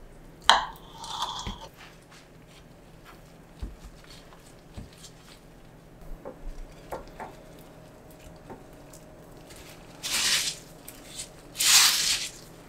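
Food-prep sounds: a sharp knock with a brief ring about half a second in, then soft scattered taps and wet handling. Near the end come two rustling crunches as an egg-coated slice of Spam is pressed into panko breadcrumbs.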